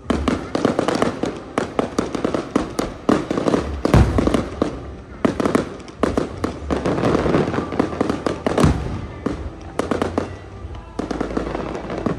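Aerial fireworks going off in rapid succession: dense popping and crackling, with heavier booms about four seconds in and again near nine seconds.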